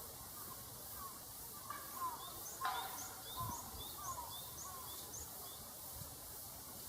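Wild birds singing over a steady background hiss: a series of short, high chirps about twice a second through the middle, mixed with lower falling call notes. A sharp click sounds once, partway through.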